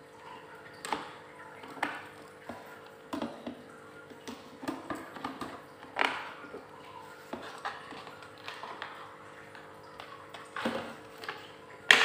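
Tin snips cutting through the wall of a PVC pipe: a series of irregular crunching snips and clicks as the blades bite and close, the sharpest about six seconds in.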